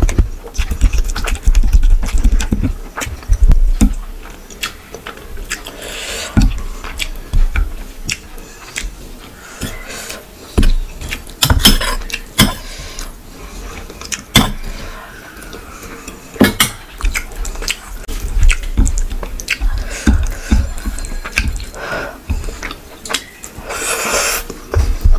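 Close-miked eating sounds: fingers mixing and squishing rice and curry, chewing and mouth noises, with irregular clicks and thumps. A metal spoon clinks against a bowl while curry is ladled around the middle.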